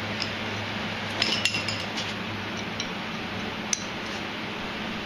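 Light metallic clinks of hand tools (socket extensions and an Allen wrench) against a motorcycle fork leg as its damper-rod bolt is being broken loose. There is a quick cluster of ringing clinks about a second in, scattered small taps, and one sharp click near the end.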